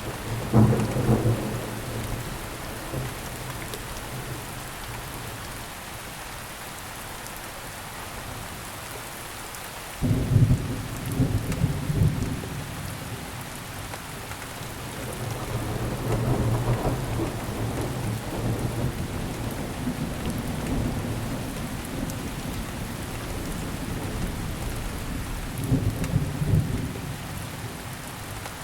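Steady rain with rolling thunder. A rumble sounds near the start, then a sudden loud thunderclap about ten seconds in is followed by rumbling, and further rolls of thunder come later.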